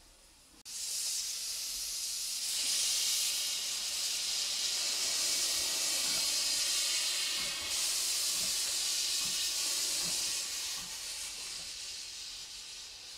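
Steam locomotive 1067 of the Brünig line hissing steam as it pulls slowly away from the platform. The loud, steady hiss starts suddenly about half a second in.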